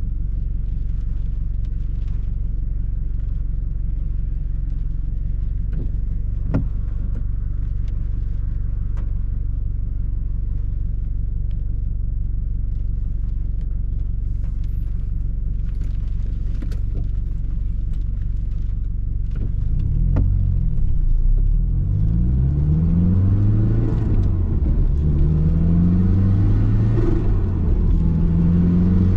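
Subaru Impreza GDB's turbocharged flat-four engine heard from inside the cabin. It idles steadily while the car waits at a light. About two-thirds of the way through it pulls away, and the engine note rises and drops back a few times as it shifts up through the gears.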